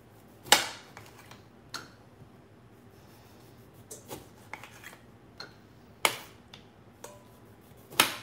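Kitchen knife cutting limes in half on the counter: several short sharp knocks at irregular intervals as the blade cuts through and strikes the board, the loudest about half a second in, about six seconds in and near the end.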